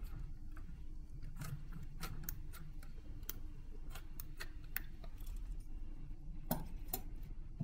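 Scattered sharp clicks and ticks as small scissors snip the stretched balloon rubber and water beads knock against the glass bowl. The two loudest clicks come near the end, as the torn balloon skin is pulled out through the beads.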